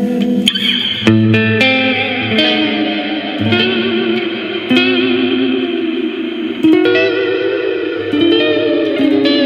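Clean electric guitar played through an EarthQuaker Devices Astral Destiny octave reverb pedal. Single picked notes and short phrases come every second or so, each ringing on into a long reverb wash.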